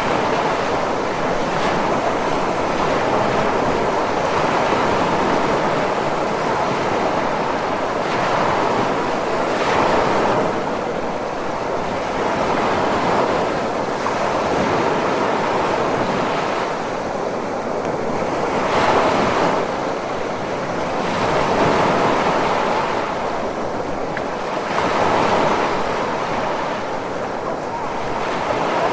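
Ocean surf: a continuous wash of breaking waves that swells and eases every few seconds.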